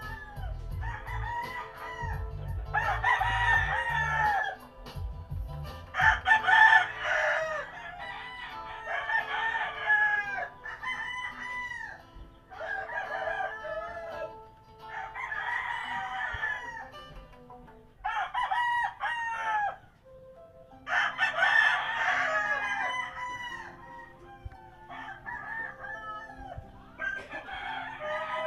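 Roosters crowing again and again, a crow about every one to two seconds, with a low rumble under the first few seconds.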